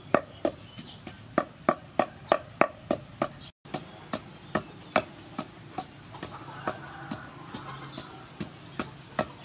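Wooden pestle pounding curry paste in a wooden mortar: steady, evenly spaced thuds, about three a second, with a brief break about a third of the way through.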